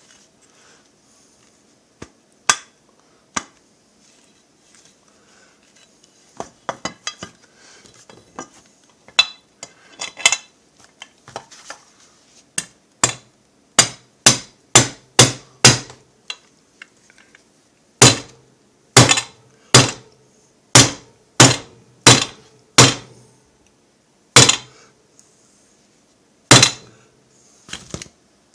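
Mallet blows on a heavy steel bearing driver, knocking a ball bearing into a chainsaw crankcase (Stihl MS660 clone). A few scattered taps come first, then a run of sharp strikes about two or three a second, then the loudest blows about one and a half a second, and three slower single blows near the end as the bearing nears its seat.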